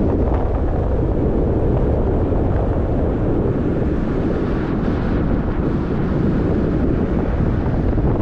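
Wind buffeting the microphone: a loud, steady, uneven rumble and rush.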